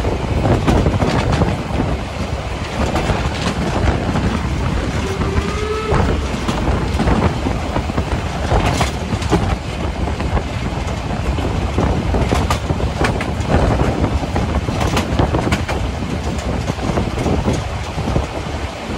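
A metre-gauge Harz narrow-gauge railway train running on the track: a steady heavy rumble with irregular clicks and knocks of the wheels over the rail joints. A brief rising tone sounds about five seconds in.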